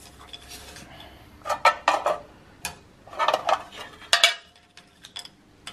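Small cut wooden wedges clattering and clicking as they are gathered up by hand on a metal bandsaw table and knocked against a metal tobacco tin, in a few short clusters of clicks. The saw is not running.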